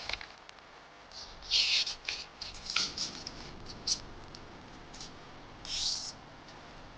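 A sheet of A4 paper being handled and folded: several short bursts of rustling and scraping as it is moved and the creases are pressed down.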